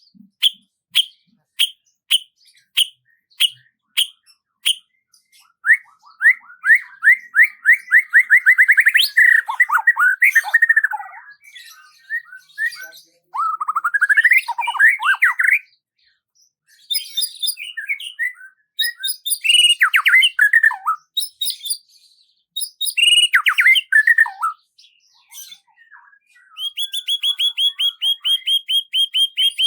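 Songbird singing: a run of evenly spaced sharp chip notes, then fast trills and varied warbled phrases separated by short pauses, ending with a long rapid high trill.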